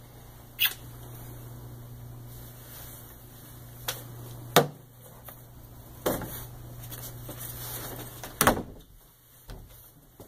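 Five sharp knocks and bangs over a steady low hum. The last is a door banging shut about eight and a half seconds in, and the hum falls away with it.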